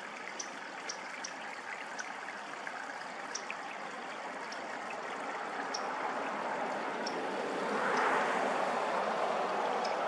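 Steady rushing outdoor background noise that slowly grows and swells about eight seconds in, with faint short high ticks scattered through it.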